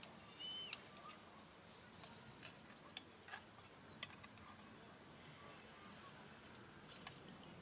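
Faint short high chirps from a small animal, several rising quickly one after another around the middle, with scattered sharp clicks.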